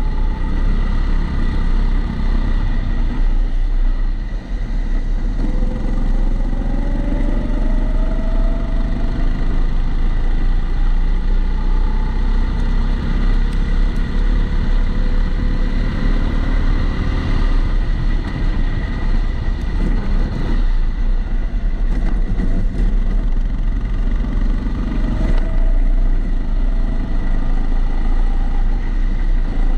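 Rental kart engine running on track, rising in pitch several times as the kart accelerates. It is recorded onboard through a camera housing, with a steady thin whine running underneath.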